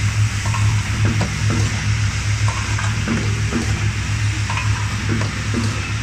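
Automatic cable gland assembly machine running: a steady, throbbing low hum under a busy, irregular clatter of clicks and clacks from its mechanism and parts.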